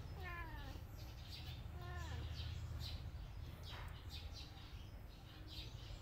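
A cat meowing twice, each call short and falling in pitch, the second about a second and a half after the first, over faint high chirps and a low steady hum.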